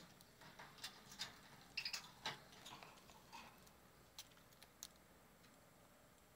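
Budgerigars pecking at and cracking seeds: faint, irregular small clicks and taps, busiest around two seconds in and sparser later.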